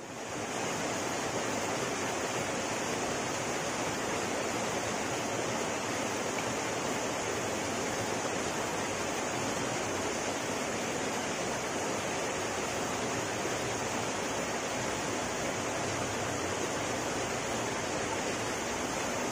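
Steady rushing of a small river's flowing water, an even hiss that starts abruptly and holds level throughout.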